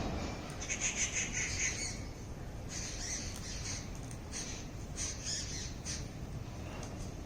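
Birds calling in three or four short bouts of high-pitched calls over a steady low background rumble.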